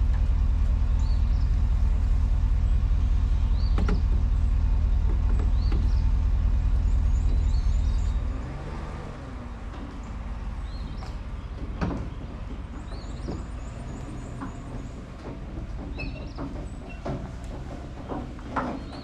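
A vehicle engine runs with a steady low rumble and cuts off about eight seconds in, followed by scattered knocks and clanks.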